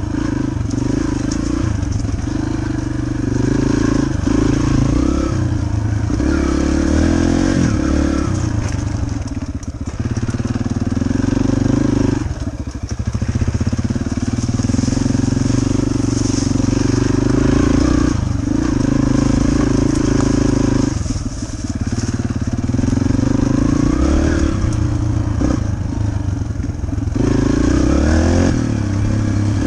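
Yamaha dirt bike engine running hard while being ridden along a trail. The pitch rises and falls as the throttle is worked, and it briefly backs off a few times: about a third of the way in, two-thirds in and near the end.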